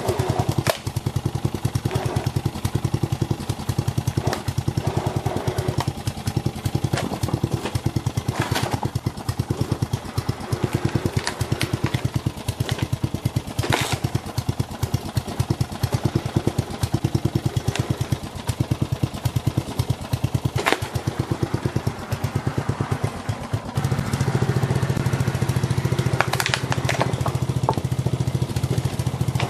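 Ride-on lawn mower's engine running steadily close by as its tyre rolls over a computer keyboard, with sharp cracks and snaps now and then as the keyboard's plastic breaks. The engine gets louder for the last few seconds.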